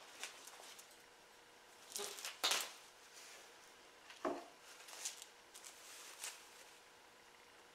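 Faint rustling of turkey feathers and a few brief scrapes and clicks as a wild turkey's wing is cut off at the broken joint and handled, the loudest about two and a half seconds in.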